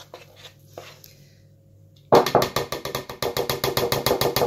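Metal spoon stirring a thick corn flour and yoghurt mixture in a bowl. A few faint scrapes come first, then from about two seconds in a fast, steady run of knocks, about nine a second, as the spoon beats against the side of the bowl.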